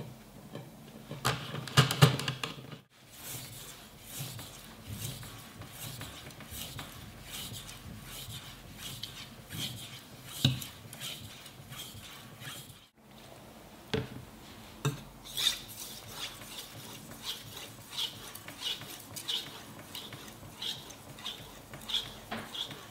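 Kitchen knife blade stroked back and forth by hand on a wet fine-grit (5000) waterstone: a regular run of short scraping strokes, about one and a half a second in the later part, the final stone stage of sharpening before the strop. About a second in, a louder clatter as the stone is handled in its holder.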